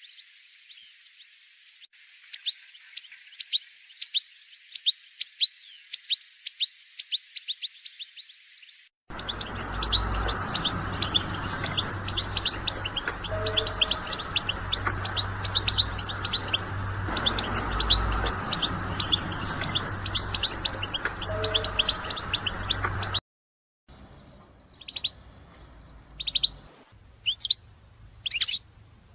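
European goldfinch calls: rapid series of sharp, high chirps and twitters used to stir a caged goldfinch into song. The recording changes abruptly about nine seconds in to a noisier one with a low hum under the chirping. After a brief gap near the end only a few single calls remain.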